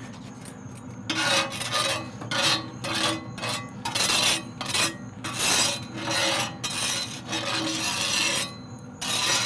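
Metal spatula scraping bacon bits and grease across a cast iron griddle insert on a pellet grill, in quick repeated strokes of about two a second that start about a second in.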